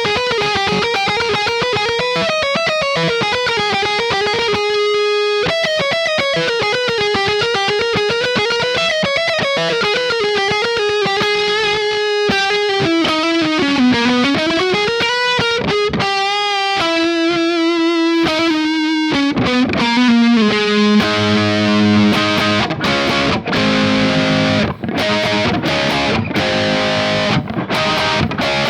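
ESP LTD EC-401 electric guitar with EMG 60/81 active humbuckers, played through a high-gain distorted tone. First come sustained lead notes with wide vibrato and a deep bend down and back up. About two-thirds of the way in, it switches to a lower, choppy rhythm riff of short repeated notes.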